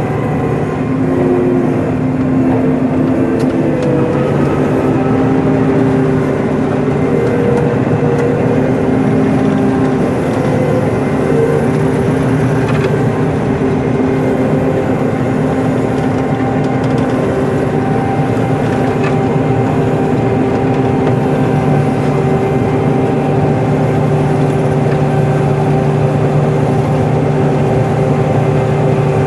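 Combine harvester running steadily while cutting wheat: a constant mechanical drone with several steady humming tones.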